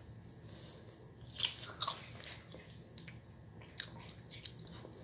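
A person biting into and chewing a flour-tortilla burrito: irregular wet mouth clicks and smacks, the loudest about one and a half and two seconds in.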